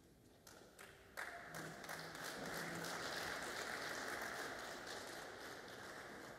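Applause from a room of onlookers: a few scattered claps, then the whole audience joins in about a second in, a steady clapping that eases off slightly near the end.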